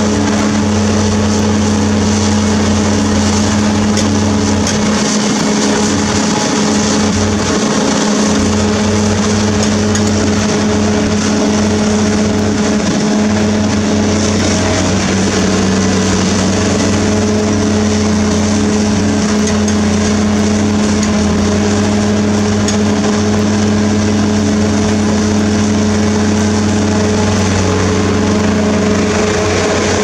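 Heavy diesel engine of a Caterpillar 336D hydraulic excavator running hard and steadily as it digs and loads a dump truck. Its note dips slightly now and then, with a few faint knocks.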